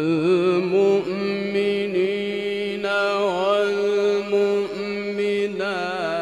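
A man reciting the Quran in a melodic, drawn-out style: one long phrase held on a steady note, with wavering ornaments and a few turns of pitch.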